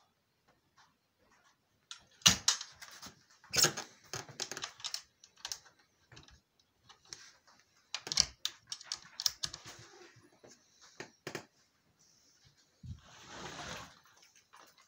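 Wooden frame of a homemade mesh fish-drying box being handled: a run of sharp clicks, knocks and clatter in clusters, then a short rustling scrape near the end.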